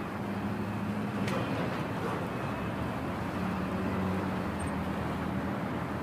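Steady city street traffic ambience: a low engine hum over a continuous wash of road noise.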